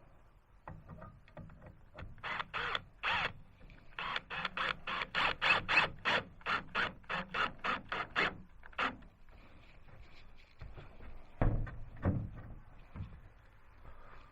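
A hand saw cutting a board in quick, even strokes, about three a second, then stopping. Two heavy knocks follow near the end.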